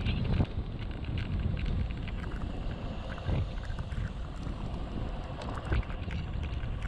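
Wind rushing over the camera microphone as a road bike rolls along asphalt, with the low hum of the tyres on the road and a few small clicks and rattles from the bike.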